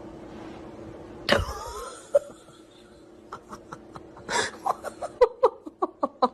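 A person laughing in short, quickening bursts from about halfway through. A single sudden loud sound with a falling pitch comes a little over a second in.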